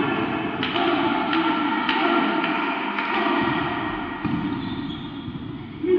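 Volleyball rally in a sports hall: the ball is struck several times, about five sharp thuds in the first three seconds, over a steady high squealing.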